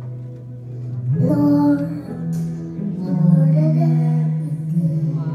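A child singing into a microphone over backing music, the voice coming in about a second in over a steady low held note.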